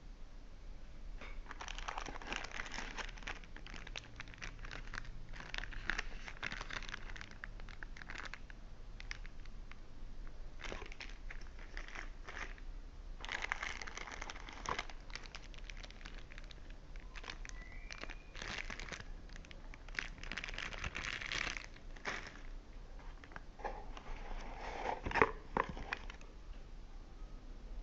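Plastic phone packaging crinkling and rustling as it is handled and unwrapped, in repeated bursts, with a sharp click near the end.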